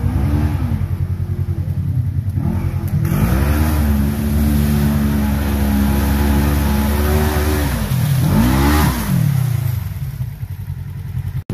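Side-by-side UTV engine revving hard as it ploughs through a mud hole, with the splash and spray of mud and water. The revs climb a few seconds in, hold high for about five seconds, drop, flare once more and then fall off.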